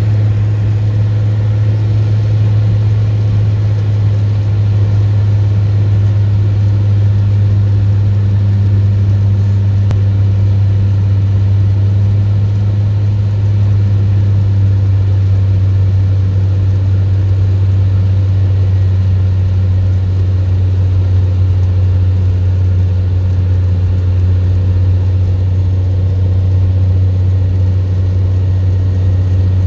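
Cessna 182G's six-cylinder Continental O-470 piston engine and propeller running in flight, heard from inside the cockpit as a steady low drone.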